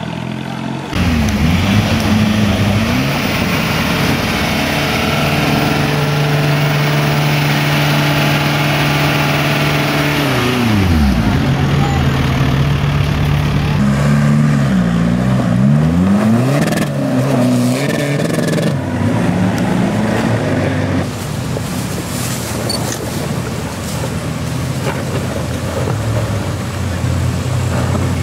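Isuzu Trooper 4x4's engine revving up and down as it drives off-road, its pitch rising and falling several times, then running more steadily in the later part.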